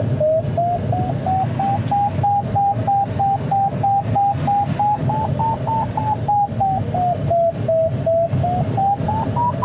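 Glider's electronic variometer beeping about three times a second, its pitch rising and falling with the climb rate and highest near the end: the tone of the glider climbing in lift. Under it, a steady rush of airflow around the cockpit.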